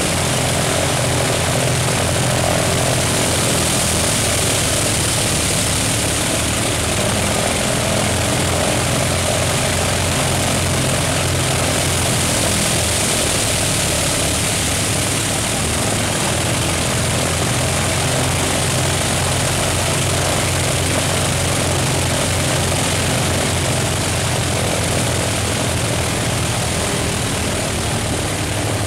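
Grumman S-2 Tracker's two Wright R-1820 nine-cylinder radial engines running steadily during a ground run, propellers turning, with a fast, even low throb.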